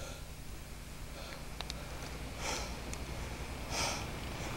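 Two heavy, airy breaths close to the microphone, a little over a second apart, from a person out of breath while climbing a steep rocky slope.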